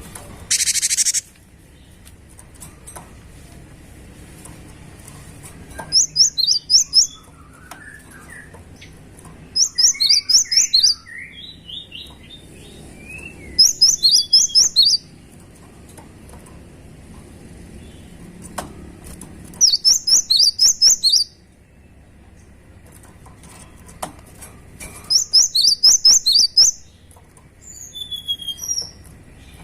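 Cinereous tit (gelatik batu) singing: five bursts of fast repeated high notes, a few seconds apart, with softer, lower chattering notes between the first few bursts. A brief hiss about half a second in.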